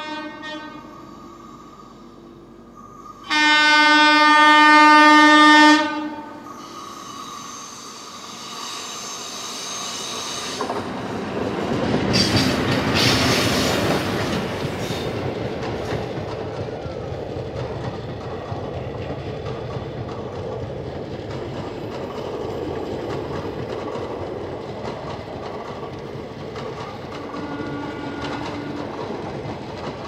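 Train horn: a short blast at the start, then a long loud blast lasting about three seconds. A heavy rush and rumble follows as a train passes close alongside on the next track, with wheels clacking over rail joints. A brief faint horn comes near the end.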